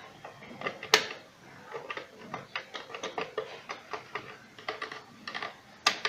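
Plastic push-button speed switches on a Moulinex blender base clicking as they are pressed one after another, two louder clicks about a second in and near the end, with no motor sound: the blender is dead and does not start.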